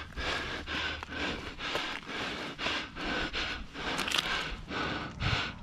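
A climber breathing hard and fast close to the microphone, quick even breaths repeating a couple of times a second, the panting of exertion mid-climb.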